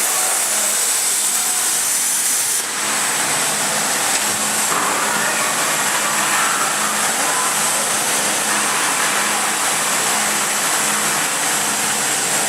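CNC plasma cutting torch running, a loud, steady hiss with a low hum under it; the sound fills out lower about three seconds in.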